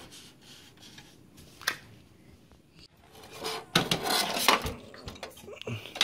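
Thin aluminium computer-case parts knocking and rattling as they are handled: a single click about two seconds in, then a run of light metallic clatter over the last couple of seconds.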